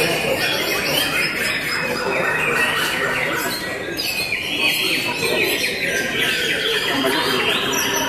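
White-rumped shamas (murai batu) singing together, a dense run of many overlapping whistled and chattering phrases.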